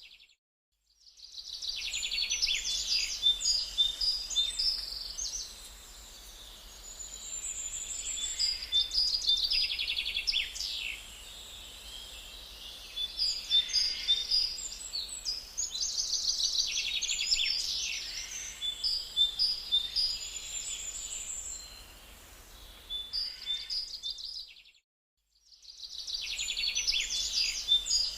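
Woodland songbirds singing, with busy, repeated trilling phrases that come and go every few seconds over a faint low rumble. The sound drops out briefly just after the start and again about 25 seconds in.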